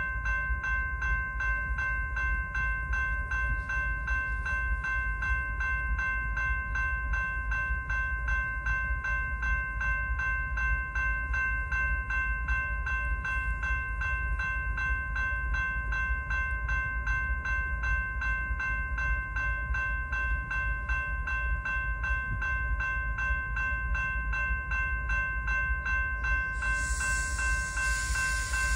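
Railroad grade-crossing bell ringing steadily in rapid, even strikes over a constant low rumble, with a hiss coming in near the end.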